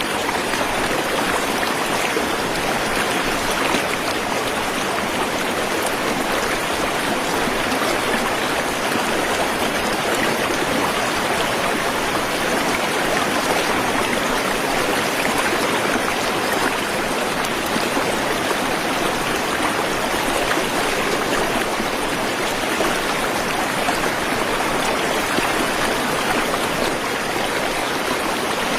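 A waterfall's water rushing and splashing in a steady, unbroken rush.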